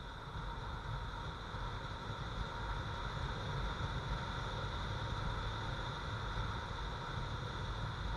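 Wind rushing and buffeting over a helmet-mounted camera on a moving motorcycle, with the steady noise of the ride beneath it.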